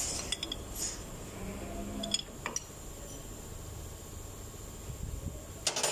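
A few light metallic clicks and clinks of a combination wrench being set on the camshaft sprocket bolt, over a low steady hum; the sharpest clicks come near the end.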